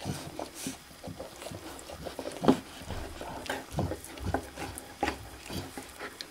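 Alaskan Malamute mother licking and snuffling at her newborn puppies: irregular wet licking and nosing noises, with one louder noise about two and a half seconds in.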